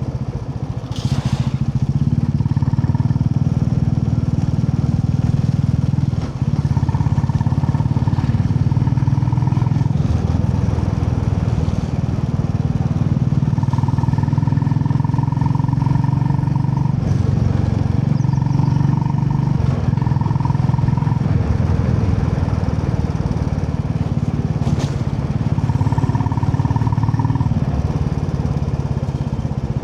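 Royal Enfield Classic 350's single-cylinder engine running steadily while riding, with a short dip in engine note about six seconds in.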